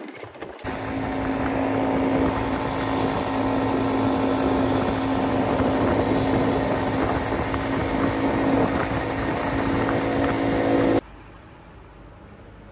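Engine of a small handlebar-steered vehicle running steadily at speed over beach sand, heard from the seat with a steady hum; it cuts off suddenly near the end.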